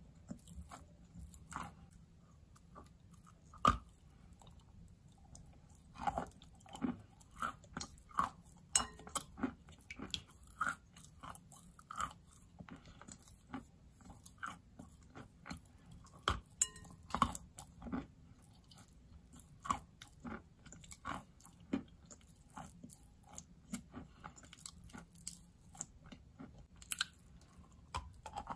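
A person biting and chewing a large lump of wet natural chalk close to the microphone: sharp, irregular crunches with softer chewing between them, the loudest bite about four seconds in.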